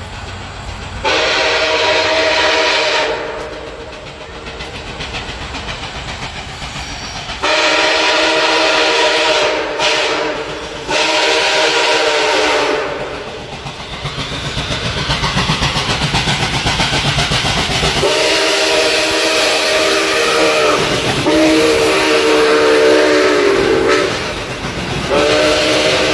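Locomotive air horn sounding about six long blasts, each a chord of several notes, over the steady rumble and wheel noise of a fast train passing on the rails.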